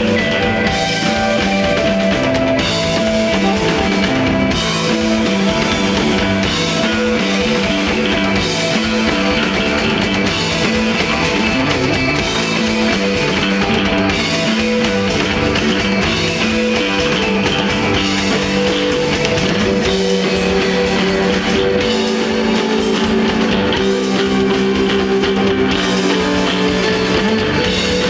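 Live instrumental rock band playing loud: electric guitar lines over bass and a drum kit, in a slow desert-rock groove.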